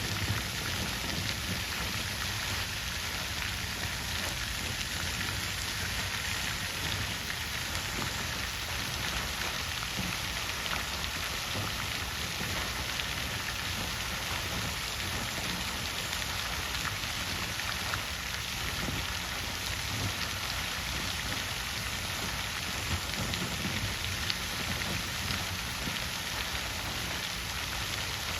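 Water fountain splashing: a steady, unbroken rush of falling water with small irregular splashes.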